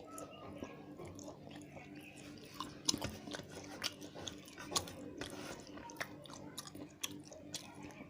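Close-up chewing and mouth sounds of a person eating a meal of rice and curry, with irregular wet clicks and smacks, a few of them sharper and louder, about three seconds in and near five seconds.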